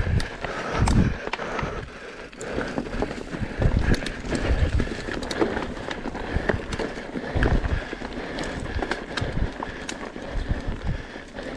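Electric mountain bike descending a rough trail at speed: tyres rolling over dirt and dry leaves, with a constant rattle of chain and frame clicks and knocks, and uneven low thumps as it hits bumps.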